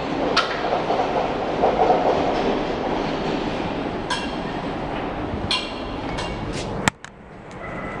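Lift moving in its shaft behind the closed landing doors: a steady rumble with several sharp clicks, ending in a loud click after which the sound drops away suddenly.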